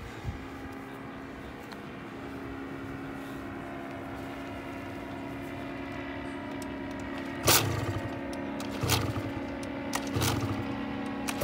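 Polini 80cc two-stroke paramotor engine being pull-started, with its Walbro WG8 carburettor freshly rebuilt. Three pulls come about a second and a half apart, each a sharp knock and a short rumble of the engine turning over, and the engine catches into an even running rhythm right at the end. A steady engine hum sounds underneath throughout.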